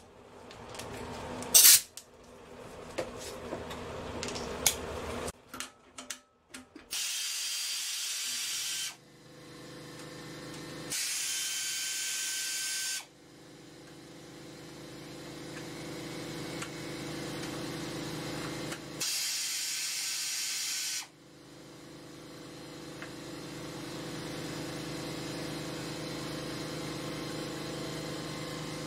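Pneumatic wrench run in three bursts of about two seconds each, whirring and hissing as it spins out the bolts holding the engine's recoil-starter and gas-tank shroud. A steady machine hum runs underneath from the first burst on. A few handling clicks come before the first burst.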